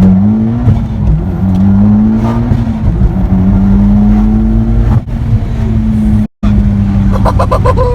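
2004 Subaru Impreza WRX STI's turbocharged 2.5-litre flat-four running hard at high revs during a pull. The engine note climbs slightly, then holds steady, and cuts out briefly about six seconds in.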